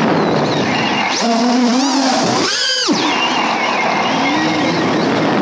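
Small FPV quadcopter's brushless motors and propellers (Xing 1404 4600kv on 4S) whining over a steady rush of air. The pitch rises and falls with the throttle, with a quick high surge and drop about two and a half seconds in.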